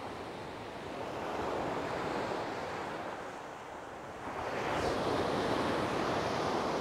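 Surf breaking and washing up a shingle beach, two waves coming in, the second louder from about four seconds in, with some wind.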